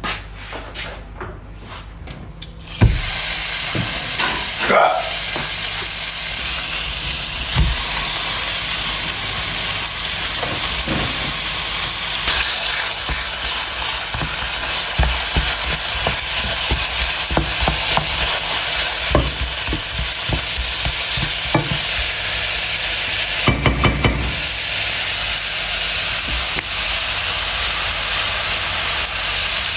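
Food sizzling in a hot frying pan: the steady hiss starts suddenly about three seconds in, with a few knocks and scrapes of a utensil stirring it.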